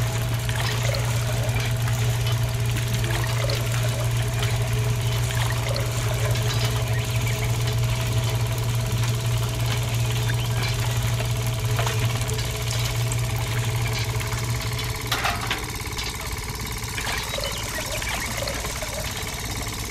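A small electric motor running with a steady hum, a little quieter about fifteen seconds in, with a few light clicks.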